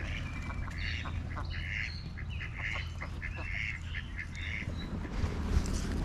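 White domestic ducks quacking: a quick string of short quacks for about four and a half seconds, over a low rumble of wind on the microphone.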